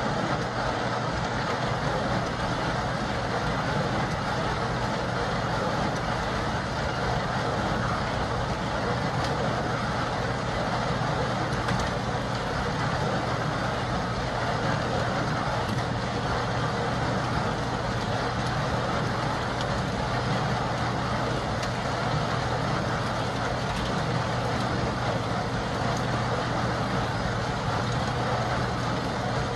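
Homemade compost trommel running: its wire-mesh drum turning with a steady low hum and an even hiss of compost tumbling through the screen, with scattered faint ticks.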